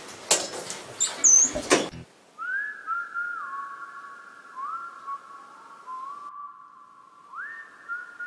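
A slow whistled melody of long held notes, each sliding up into its pitch. It starts about two seconds in, after a short burst of clattering and knocking noise.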